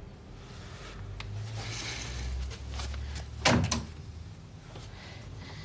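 A single dull thump about three and a half seconds in, over a low background rumble.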